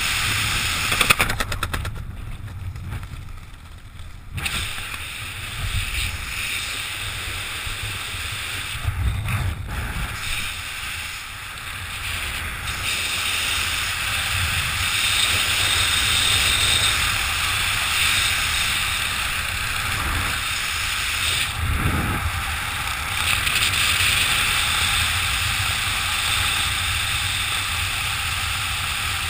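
Wind rushing over the camera's microphone during a descent under an open parachute, a steady rush with gusty low rumbles. It eases briefly a few seconds in.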